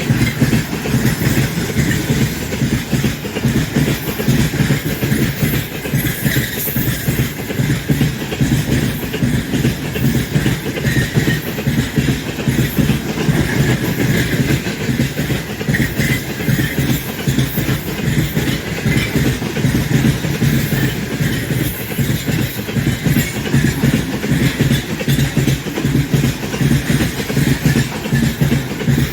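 Freight train hauled by a 3ES5K Ermak electric locomotive rolling past, its wagon wheels clattering steadily over the rails.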